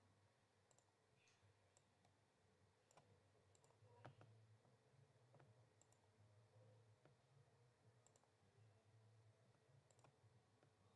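Near silence with faint, scattered computer mouse clicks, about eight of them, over a low hum.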